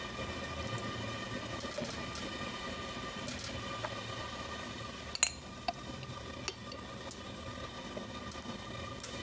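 A metal spoon spreading and scraping tomato sauce over pizza dough on a metal pizza pan, with a few sharp clinks of the spoon, the loudest about five seconds in. A steady faint hum runs underneath.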